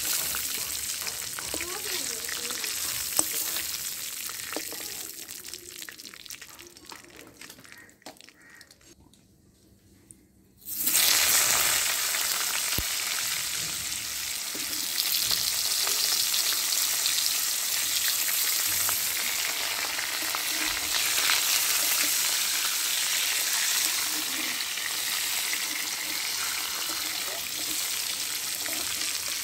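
Food sizzling as it fries in hot oil in a metal karahi, with a spatula scraping now and then. The sizzle fades almost to silence, then about eleven seconds in loud sizzling starts suddenly as raw potato chunks go into the oil, and it carries on steadily while they fry.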